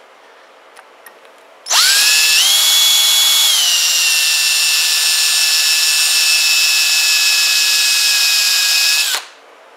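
Power drill driving a left-handed drill bit into the brass tamper plug over a GY6 scooter carburetor's high-speed adjustment screw, to drill it out. The drill starts about two seconds in, climbs in pitch, drops to a slightly lower steady whine after about a second, runs for about seven seconds and stops near the end.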